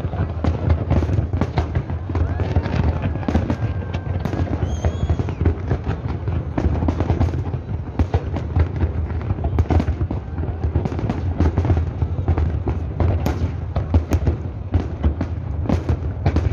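Fireworks display: a dense, continuous barrage of shell bursts and crackling over a steady low rumble.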